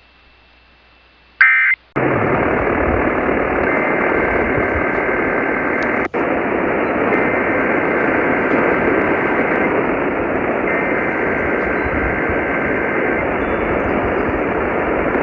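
Radio receiver static: a short chirp, then a loud, steady hiss that opens up about two seconds in and drops out for an instant near the middle. Three times, faint two-tone EAS data bursts (SAME header tones) sound beneath the hiss.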